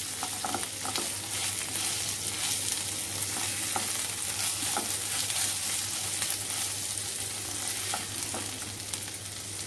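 Mung dal and rice frying in mustard oil in a pan, a steady sizzle with the light scrape and occasional click of a spatula stirring; the rice is well fried.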